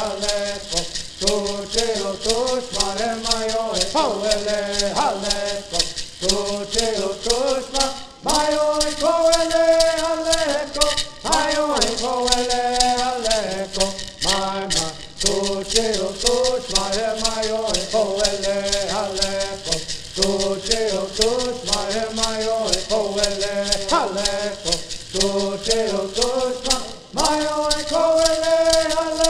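A group of men singing a traditional Native Californian bird song while shaking gourd rattles in a fast, steady rhythm. The song and rattles break off briefly about eight seconds in and again near the end, then resume.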